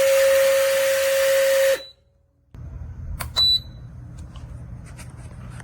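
Electric hydraulic car jack's motor-driven pump running with a steady whine, cutting off suddenly about two seconds in. A quieter low hum follows, with a few clicks and one short high beep.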